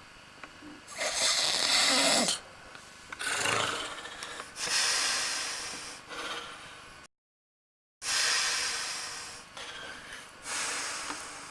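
A man snoring heavily in deep sleep: loud, rough snorting breaths every second or two, a few with a falling pitch. The sound drops out to dead silence for about a second a little past halfway.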